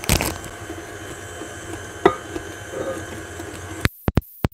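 Kitchen dishes handled: a knock at the start, then about two seconds in a sharp clink that rings on briefly, like a spatula striking a ceramic mixing bowl. Near the end the sound cuts out in short gaps.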